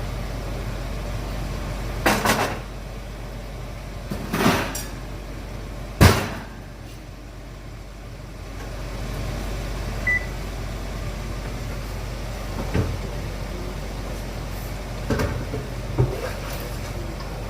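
Kitchen clatter: a series of separate knocks, bumps and thuds from cookware, dishes and cupboards being handled, the sharpest about six seconds in, over a steady low hum. A brief high beep sounds about ten seconds in.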